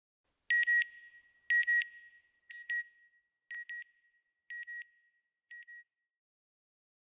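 Electronic beeps: six double beeps about a second apart, high-pitched and fading steadily, like a satellite-signal sound ident.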